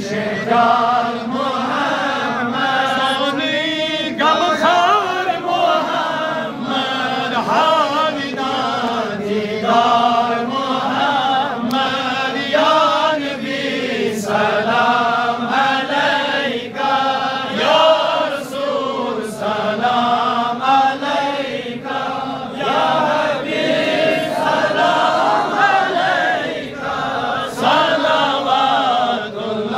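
A group of men chanting a devotional Islamic song together, one lead voice on the microphone with the others singing along.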